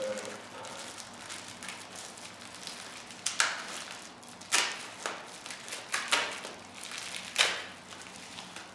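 Pink bubble-wrap pouch crinkling and rustling as it is handled and pulled open, with several sharp, louder crackles in the second half.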